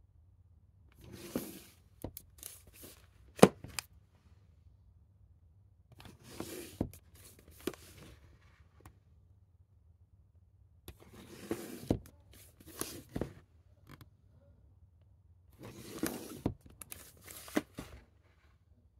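Plastic Blu-ray cases being handled on a shelf, rubbing and clacking against each other in four bursts of rustling and sharp clicks a few seconds apart. The loudest clack comes about three and a half seconds in.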